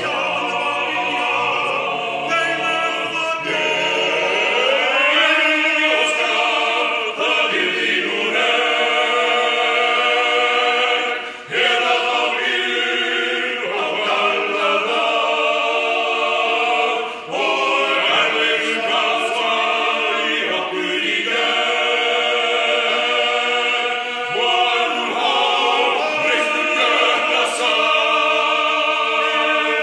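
Male vocal ensemble singing a cappella in Icelandic, holding full chords in several parts, with two short breaks between phrases, about a third and just over halfway through.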